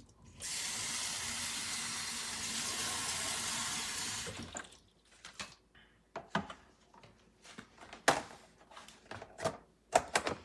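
Water running from a tap into a plastic meal-prep container as a steady rush that stops about four and a half seconds in. Then comes a string of sharp plastic clicks and knocks as the container and its lid are handled.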